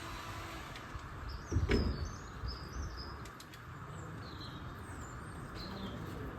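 Birds chirping in short, high calls over a steady background hum, with a dull thud about one and a half seconds in.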